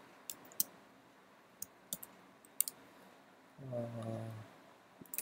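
Single keystrokes on a computer keyboard, about six well-spaced clicks over the first three seconds as code is typed slowly, with a short steady voiced hum from the typist a bit past halfway.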